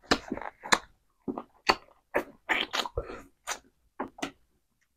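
A person chewing curried chicken close to the microphone: a quick string of short, sharp mouth clicks and bites, about three a second, with silent gaps between.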